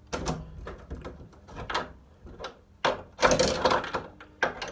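Irregular knocks, clicks and rattles of handling, with a louder burst of noise about three seconds in and a shorter one near the end.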